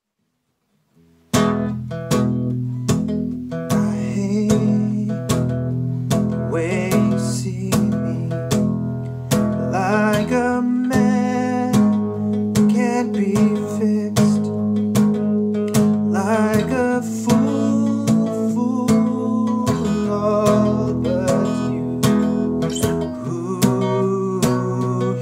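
Steel-string acoustic guitar being strummed in a steady rhythm, starting about a second in.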